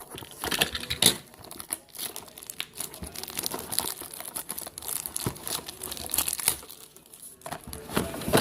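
Crinkling and tearing of plastic wrap and packaging as a trading-card blaster box is opened, in irregular rustles and crackles that ease off briefly near the end.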